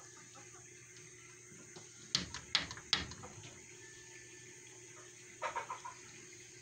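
A chicken's beak tapping against a glass door as it pecks at a bug: three sharp taps about two seconds in, about half a second apart, then a quicker run of lighter taps near the end.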